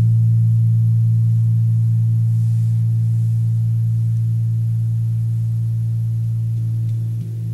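Tuned planet moon gong sounding under felt-headed mallets: a deep, steady hum with fainter ringing tones above it, slowly dying away, and a soft new stroke near the end.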